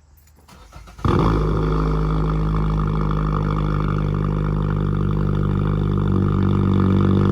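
A loud, steady low buzzing drone that starts abruptly about a second in and holds an unchanging pitch.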